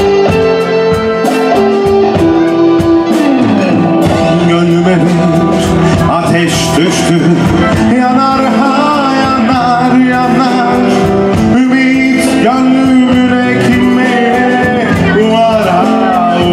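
Live band playing a song: a singer's voice over guitar, keyboard and drums, at a steady loud level.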